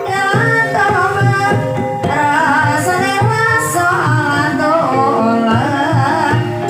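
Javanese ebeg accompaniment music: a singer holding a wavering, ornamented melody over regular drum strokes and sustained gamelan-style tones.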